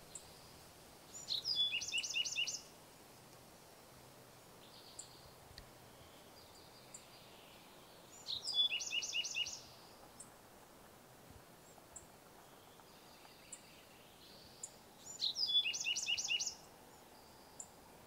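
Bewick's wren singing the same short song three times, about seven seconds apart. Each song lasts about a second and a half: a brief opening, then a fast trill of repeated high notes.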